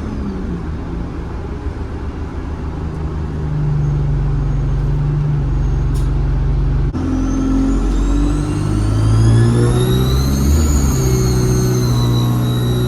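ADL Enviro 200 bus's diesel engine pulling under way, with a short click about seven seconds in. Then its turbocharger whistle rises to a high whine over a few seconds, holds, and begins to fall at the end.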